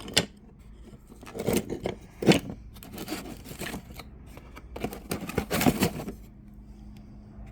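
Abrasive discs and their packaging being handled: several bursts of scraping, rustling and light knocks, the last and longest about five to six seconds in, over a faint steady hum.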